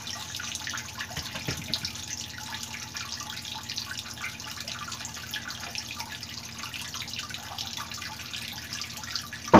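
A thin stream of tap water pouring steadily into a half-full plastic basin, splashing on the water's surface.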